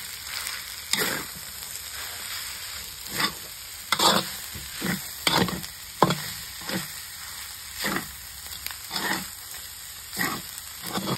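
Minced rat meat and chillies stir-frying in an enamel pan: a steady sizzle, with a metal ladle scraping and knocking against the pan every second or so as the food is turned.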